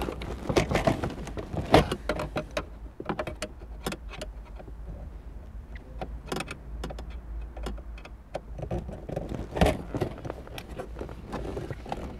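A screwdriver working at a screw behind the plastic dashboard trim: scattered small clicks, scrapes and knocks of the metal tool and hands against plastic, with two louder knocks, about two seconds in and again later, over a steady low hum.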